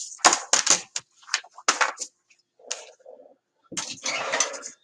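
Desk handling sounds: several sharp knocks and taps in the first two seconds, then about a second of rustling near the end, as a sheet of paper is got out to draw on.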